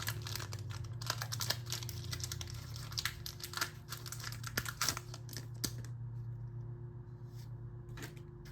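Foil wrapper of a Pokémon card booster pack crinkling and tearing as it is handled and opened. The crackling is dense for about six seconds, then thins to a few faint crackles near the end.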